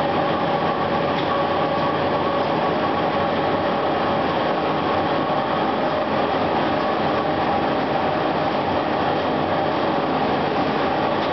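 Continuous frying machine running: a steady mechanical hum with a few constant tones over a dense hiss.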